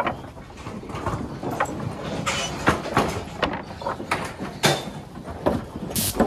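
Nelore cattle moving in a livestock handling chute: irregular knocks and clatter of hooves and bodies against the chute, with a few louder bangs about halfway through and near the end.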